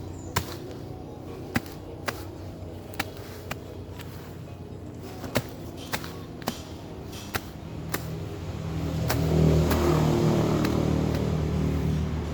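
A motor vehicle's engine running steadily, with a scatter of sharp knocks over it; from about eight and a half seconds in the engine swells louder, revving up.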